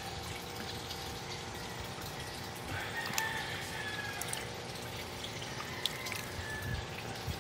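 Water splashing and sloshing in a plastic basin as small koi are stirred by hand and tipped out into a pond, over a steady watery hiss.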